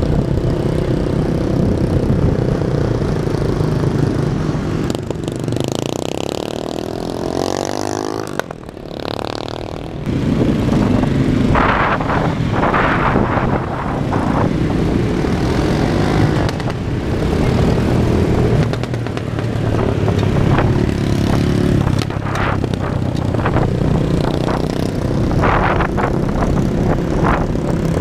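Motorcycles and a car riding together in city traffic: steady engine and road noise, the engines' pitch rising and falling, with a brief quieter stretch about nine seconds in.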